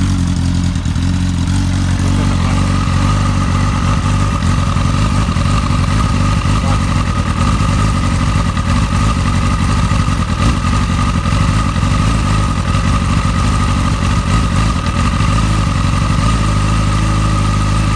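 Motorcycle engine idling with the rough, uneven idle that the owner suspects worn, never-changed spark plugs may be causing. A steady higher whine joins about two seconds in.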